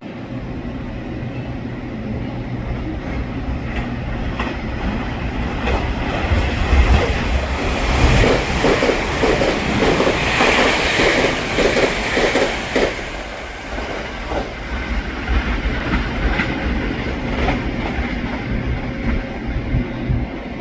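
Puyuma express tilting electric train passing at speed, its wheels clattering over the rail joints (fishplates) in a quick, even run of knocks that builds and dies away through the middle, over a steady rumble.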